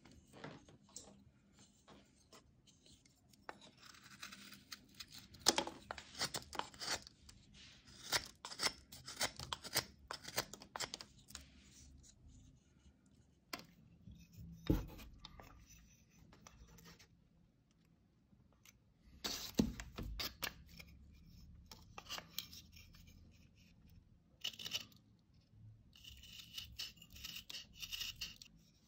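Knife carving a piece of wood in short strokes, each a brief scraping, tearing cut as a shaving comes off, in irregular runs with pauses between. Two dull knocks stand out, about halfway through and a few seconds later.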